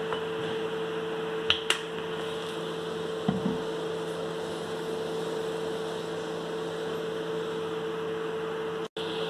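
Steady mechanical hum with a held tone, like a running kitchen appliance or fan. Two light clicks come about a second and a half in, and a soft knock a little after three seconds.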